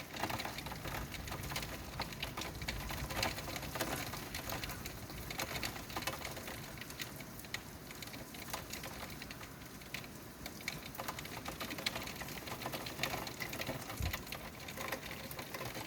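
Heavy thunderstorm rain pattering steadily, a dense stream of fine irregular taps over a hiss.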